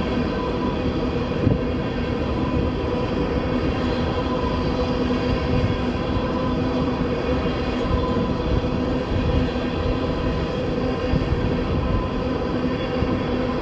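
Loaded crude oil tank cars of a freight train rolling past: a steady rumble and rattle of steel wheels on the rails, with a steady hum underneath and a single knock about a second and a half in.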